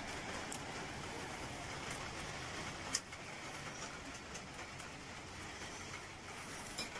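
Steady outdoor background noise with no clear single source, and a sharp click about three seconds in.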